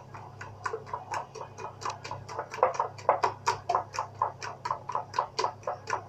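Gram-flour (besan) batter being beaten by hand in a glass bowl: quick, regular wet slaps of the hand through the thick batter, about four a second, as it is whipped smooth and airy for dhokla.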